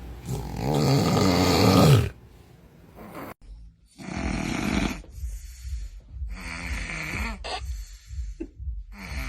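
A sleeping person snoring: one long, loud snore in the first two seconds. After an abrupt cut comes a run of shorter snores, about one a second or so, with quiet gaps between breaths.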